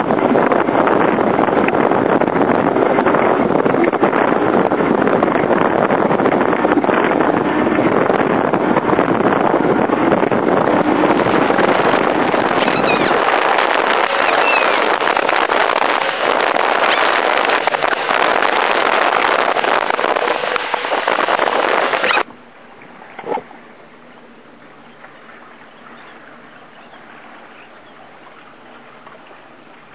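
Wind and water noise from a small motorboat running at speed on open sea. About two-thirds of the way through, the sound drops suddenly to a much quieter background, with a single knock a second later.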